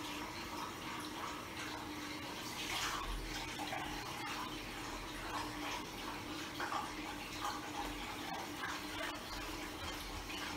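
A bathroom washbasin being washed and scrubbed by hand: water sloshing and cloth strokes against the basin in a steady, irregular run, with a faint steady hum underneath.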